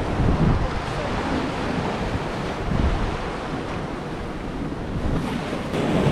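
Sea waves breaking and washing over shoreline rocks, with wind buffeting the microphone.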